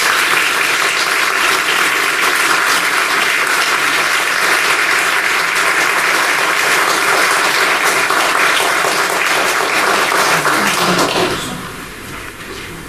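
An audience applauding steadily, with many hands clapping. The applause stops fairly suddenly about eleven seconds in.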